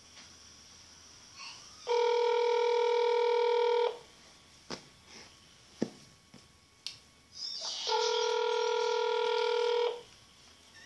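Telephone ringback tone from a phone on speaker: two steady rings, each about two seconds long and about four seconds apart, with a few faint clicks between them. It is the sign of the call ringing unanswered at the other end.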